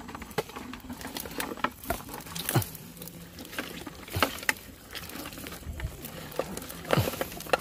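Irregular scattered clicks and small pops, about two a second, with a few louder dull knocks.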